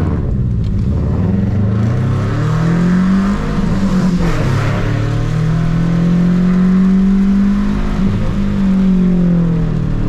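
Subaru Impreza 2.5 RS flat-four engine pulling hard through the gears on an autocross run, its pitch climbing, dropping back about three and a half and eight seconds in, then climbing again.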